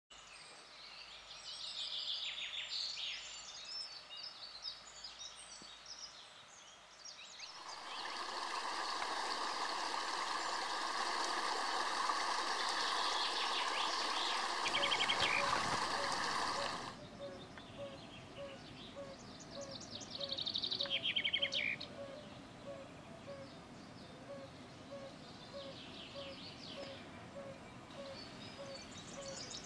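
Wild birds singing, with a stretch of rushing stream water in the middle that starts and stops abruptly. Later, beneath the bird phrases, a steady run of short low calls repeats about twice a second.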